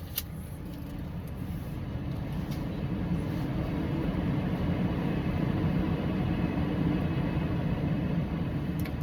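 Car heater blowing at a steady hum, growing louder over the first few seconds after the heat is switched on.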